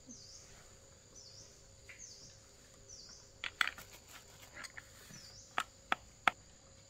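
Several sharp knocks or taps: a quick cluster about three and a half seconds in, then three single sharp clicks near the end, the last the loudest. Behind them a thin high chirp repeats every second or so.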